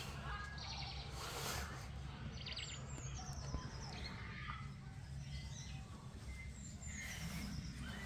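Faint outdoor ambience: small birds chirping and twittering, with a quick falling run of notes about three seconds in, over a low steady rumble.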